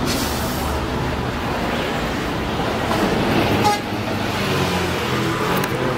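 Steady road traffic noise from a busy street, with one brief sharp sound about three and a half seconds in.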